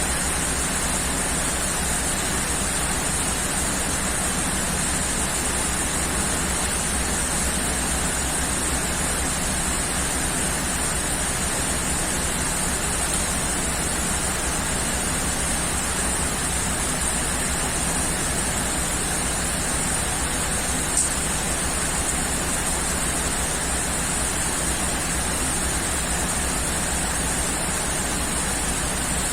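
Steady, heavy rainfall, an even hiss of rain with no thunder heard, and a single brief click about two-thirds of the way through.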